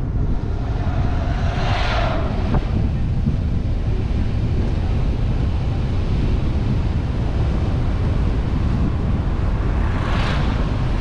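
Wind buffeting the microphone over the steady road and engine rumble of a moving car, with two brief whooshes, about two seconds in and near the end.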